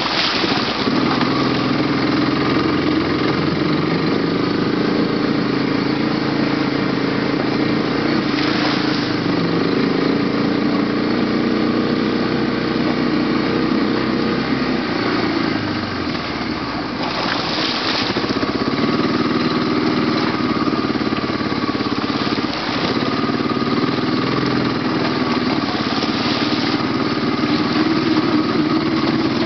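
ATV (quad) engine running steadily as the machine is ridden up a rough mountain trail, easing off briefly about halfway through before picking up again. A few short noisy rushes come in over the engine.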